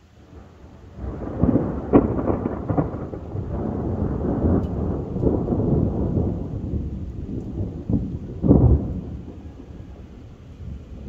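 Long roll of thunder: it builds about a second in, with sharp cracks near two seconds, rumbles on, peaks again with a loud clap about eight and a half seconds in, then dies away.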